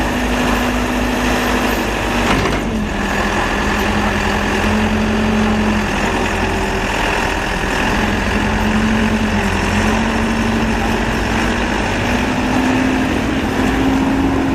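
Caterpillar 426C backhoe loader's diesel engine running steadily. Its pitch dips slightly about two and a half seconds in, with a brief click, then climbs back near the end.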